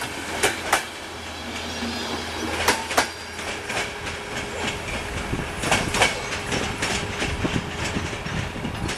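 Passenger coaches rolling past at low speed, their wheels clacking over rail joints in pairs over a steady rumble, with a closer-spaced run of clacks in the second half.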